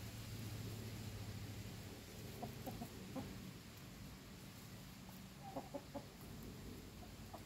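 Chickens clucking: two short runs of about four quick, soft clucks, the first a little before the middle and the second later on, with a faint steady low hum under the first half.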